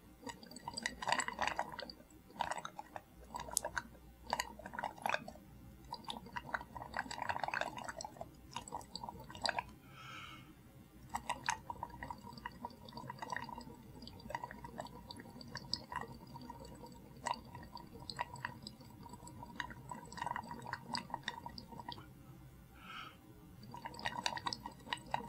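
Exhaled breath blown through a glass tube into lime water in a glass flask, bubbling and gurgling in repeated bursts of small pops, one burst per breath.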